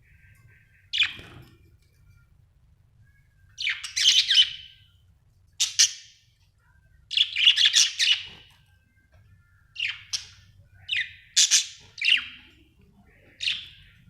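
Budgerigar chirping in separate bursts, some short calls and some longer chattering runs of a second or so, about eight in all.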